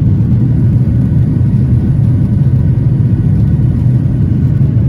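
Boeing 737-800 cabin noise: a steady, loud low rumble from its CFM56-7B engines and airframe, heard inside the cabin, with a faint steady whine above it.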